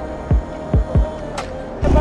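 Background music of held notes with three deep falling booms and a sharp hit. Near the end it cuts abruptly to a motorcycle engine running.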